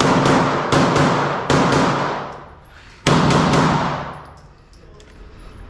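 Four shots from a Glock 47 pistol, each with a long echoing decay: three in quick succession about three-quarters of a second apart, then a fourth after a pause of about a second and a half.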